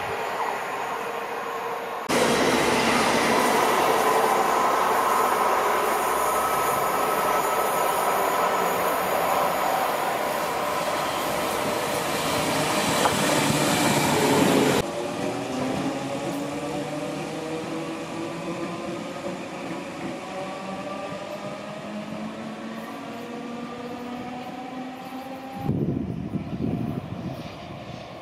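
Electric multiple-unit trains passing: a loud close pass of a Great Northern class 313 unit, a dense rush of wheel and rail noise. This is followed by an electric train's motor whine sliding steadily down in pitch as it slows or draws away.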